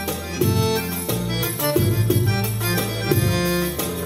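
Live oriental belly-dance music played on a Korg keyboard: a melody over a bass line with a regular percussive beat.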